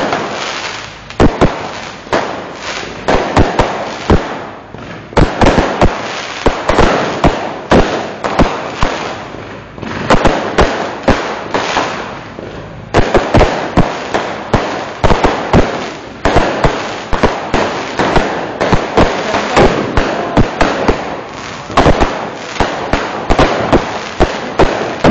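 Fireworks going off in rapid, irregular succession: many sharp bangs, several a second, over continuous crackling, with a brief lull about halfway through.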